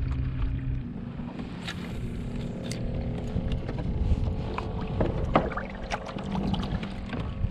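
A kayak under way: its drive gives a steady whirring hum that shifts pitch about a second in, over low wind and water noise, with scattered light clicks and knocks.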